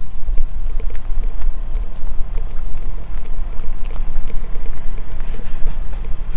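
A loud low rumble with rapidly flickering loudness, and soft footsteps at a steady walking pace on a concrete sidewalk.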